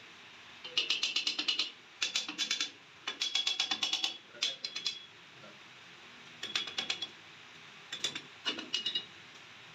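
Ratchet wrench clicking in short runs of rapid metallic ticks, about seven runs with brief pauses between, as bolts on a flour mill's cutter-blade rotor are turned.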